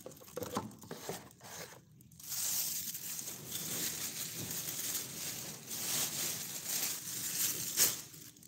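Thin clear plastic bag crinkling and rustling as it is handled, with a short pause about two seconds in and a sharp crackle near the end.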